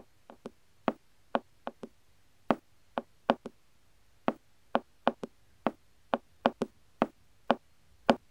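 Light tapping footsteps of a dancer stepping through ballet steps: about twenty short, sharp taps in an uneven rhythm, some in quick pairs or triplets.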